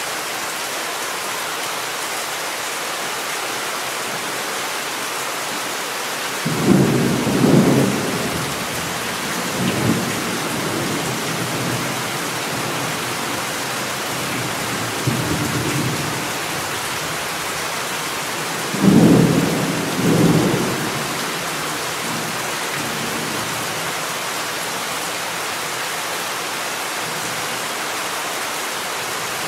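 Thunderstorm: steady heavy rain hiss, with rolling thunder rumbles breaking in sharply about six seconds in and again about two-thirds of the way through, plus smaller rumbles between.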